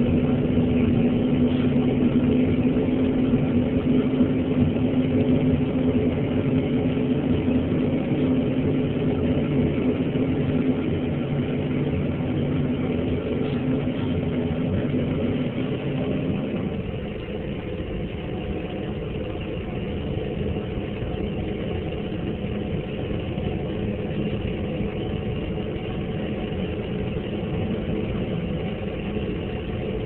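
Propane space heater burner running with a steady jet-like rush of flame and a low hum. About halfway through, it turns a little quieter and the hum drops out, leaving a plainer rushing sound.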